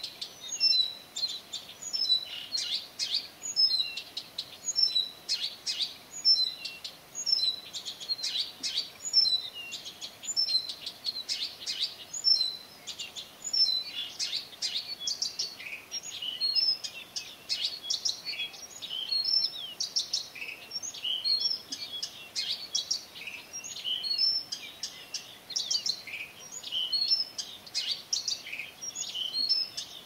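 Birds singing at night, a dense, unbroken stream of quick, high chirps and whistles.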